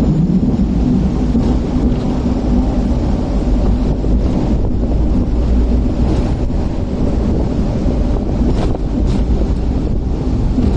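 Hong Kong double-decker tram running along street track: a steady low rumble of wheels and traction motor, with wind noise on the microphone. Two short light clicks near the end.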